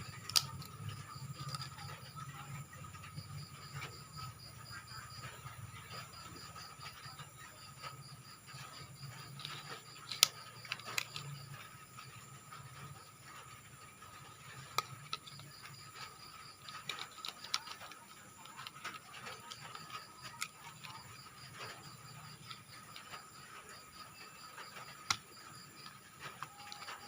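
Scattered sharp clicks of plastic toy parts being handled and fitted together, the loudest about ten seconds in, over a faint steady hum.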